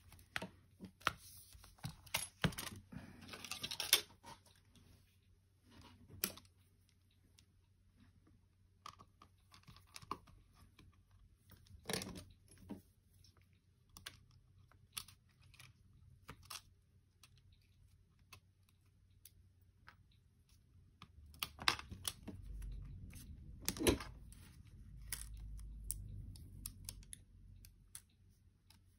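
Hands and small tools working on a Samsung Galaxy Tab A7 tablet being taken apart: scattered light clicks and taps on plastic and metal, with a stretch of scraping and tearing about two to four seconds in. A low rumble of handling noise comes in for a few seconds near the end.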